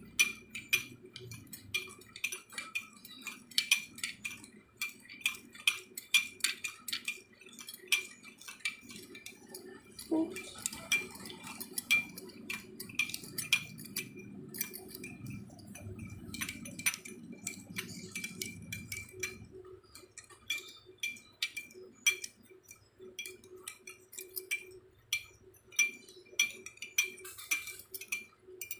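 Metal spoon stirring salt water in a glass bowl, clinking against the glass many times at an irregular pace as the salt dissolves.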